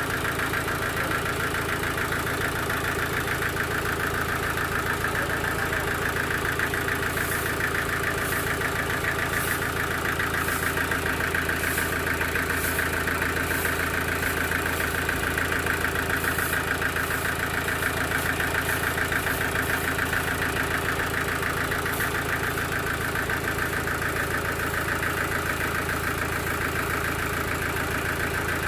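Sawmill machinery's engine running steadily at an even speed, with a run of short, high ticks in the middle.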